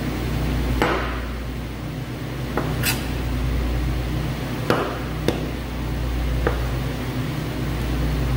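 Knife and meat knocking on a butcher's cutting board while a top sirloin is trimmed: about six short sharp knocks, spread out, over a steady low machine hum.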